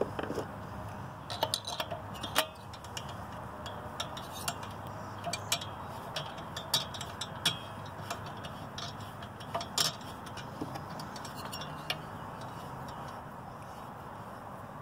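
Irregular light metallic clicks and taps, a few at a time, from a two-stroke engine being turned over slowly by hand with its new cylinder held on loosely snugged bolts, and from a driver being set on the cylinder bolts.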